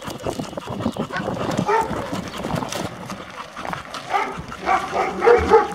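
Footsteps of people and dogs walking on a gravelly dirt road, a steady run of short scuffs and knocks. From about four seconds in come a few short pitched vocal sounds, the loudest part.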